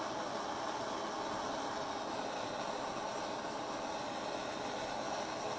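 Handheld gas torch flame hissing steadily as it heats metal on a soldering brick to melt it.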